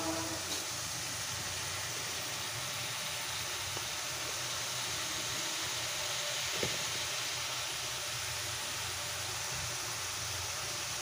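Sliced onions frying in oil in a steel kadai, a steady sizzling hiss as they soften, with a single light click about six and a half seconds in.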